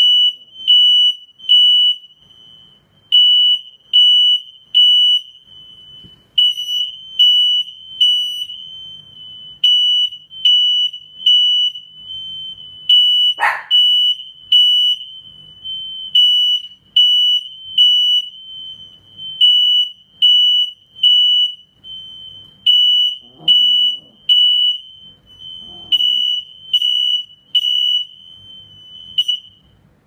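Fire alarm sounding its evacuation pattern: a high, shrill beep repeated in groups of three with a short pause between groups. It keeps going until just before the end, and a single sharp brief sound cuts in about halfway.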